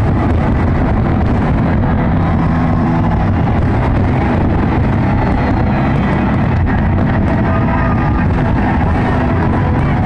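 Continuous rumble of a large fireworks display, many booms and crackles running together into one steady loud din.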